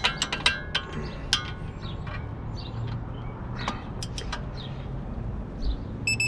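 Ratchet of a torque wrench clicking in quick strokes as a bolt is tightened, thinning to scattered clicks, then a high electronic beep near the end as the digital torque wrench signals that it has reached its 66 ft-lb setting.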